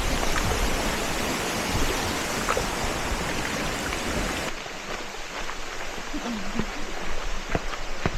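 Rushing water of a waterfall or stream, a dense steady roar. About halfway through it drops suddenly to a quieter wash of water with scattered short clicks.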